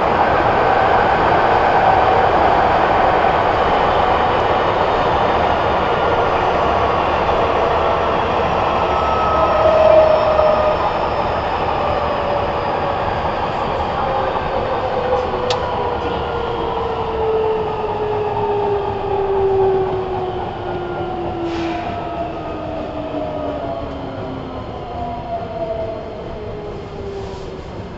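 Nagoya Municipal Subway N3000 series electric train heard from inside the car as it slows: the traction motor whine, several tones together, falls steadily in pitch while the running noise fades, the sign of the train braking. A couple of brief clicks are heard partway through.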